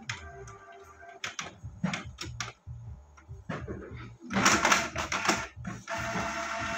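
Canon PIXMA iP2770 inkjet printer printing a page, now working after its 5B00 waste-ink error was reset: clicks and whirring from the paper feed and print-head carriage. A louder stretch of mechanical clatter comes about four seconds in, followed by a steady whir near the end.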